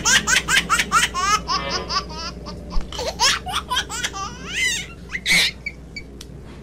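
High-pitched laughter like a small child's: quick rising peals several a second, thinning out after about three seconds, with a last louder peal about five seconds in.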